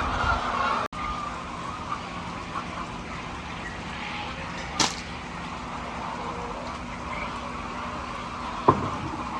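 Steady background noise of a hen house with faint bird calls; a sharp click about five seconds in and a knock near the end.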